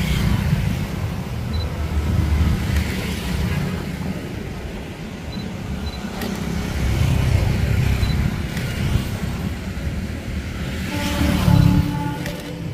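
Road traffic passing close by, a fluctuating low rumble of vehicles, with a vehicle horn sounding briefly near the end.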